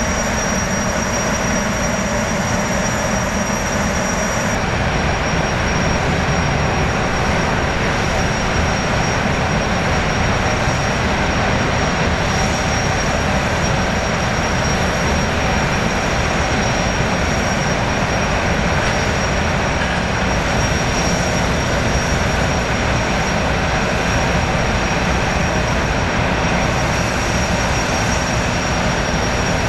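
A high-speed jetfoil's gas turbine engines running steadily alongside the pier: an even, loud rush with a thin, steady high whine.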